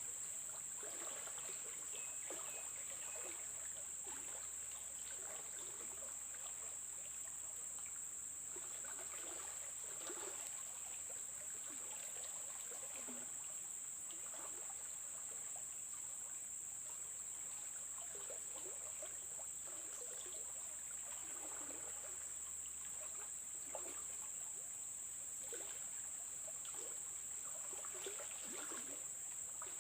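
River water gurgling and trickling, in small irregular splashes, under a steady high-pitched insect drone.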